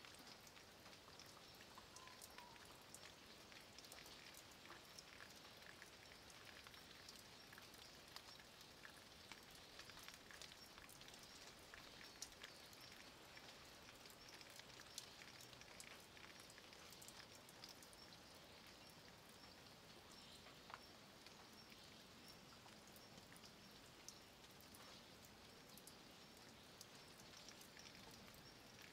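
Light rain falling on a stone wall and leaves: a faint, steady hiss with many scattered drip ticks.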